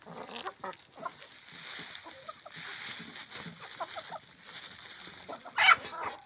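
Chickens clucking softly in short, scattered notes while they peck at the ground, with one louder call near the end.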